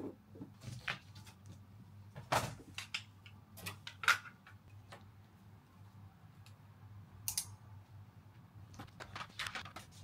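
Irregular short clicks and knocks over a steady low hum, the loudest about two and a half and four seconds in.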